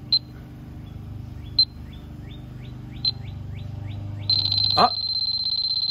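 Electronic refrigerant leak detector beeping at an outdoor unit's service valves. Single high beeps come about every second and a half, with faint chirps between them speeding up. About four seconds in it goes to a continuous high alarm tone, the sign that it has picked up refrigerant at the valve.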